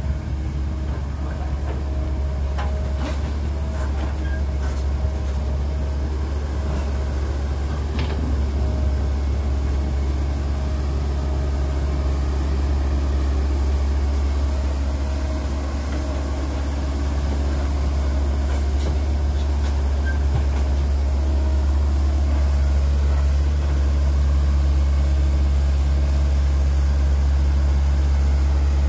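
Diesel engine of a Cat E120B hydraulic excavator running under working load as it digs and swings, a steady low drone, with a few sharp knocks of rock in the first eight seconds. The engine grows somewhat louder over the second half.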